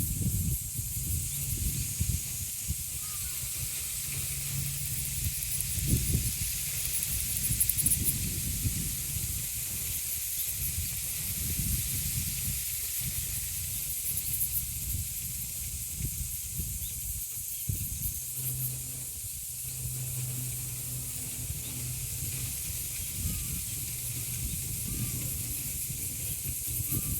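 Steady high-pitched drone of cicadas, with wind gusting through the trees and rumbling on the microphone.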